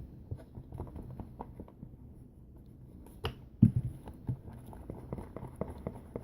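Scattered small clicks and taps from handling slime-making containers and ingredients, with a sharp click at the start and two louder knocks a little past the halfway point.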